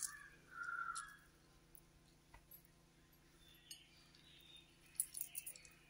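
Half a lemon squeezed by hand over a steel pot of fresh mint and coriander: a faint wet squish of juice in the first second, then near quiet, then a few light clinks against the steel pot near the end.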